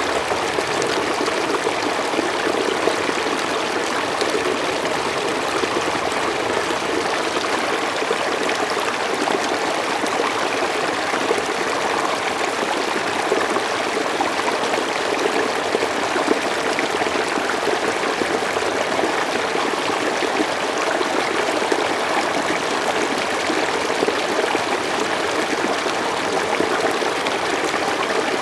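Mountain stream flowing steadily over rocks, an even splashing and babbling rush of water.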